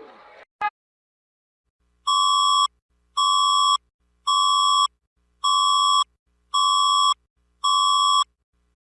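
Six evenly spaced electronic alarm beeps, each about two-thirds of a second long and roughly one a second, from a mock emergency alert alarm run through a vocoder. Before them, the tail of a siren winds down at the very start, followed by a short blip.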